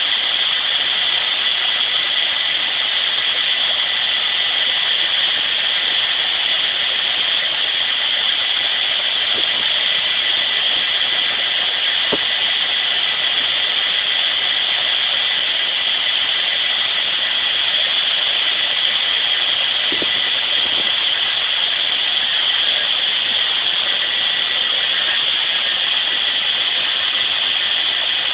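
Harvest machinery running steadily: an even hiss-like drone with a faint high whine through it and a few light clicks.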